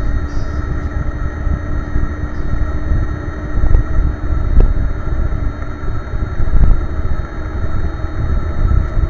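Mack E7-460 diesel in a 2000 Mack CX613 dump truck running as it drives on a rough dirt haul road, heard from inside the cab: a heavy low rumble with a steady whine over it and a few knocks from the truck.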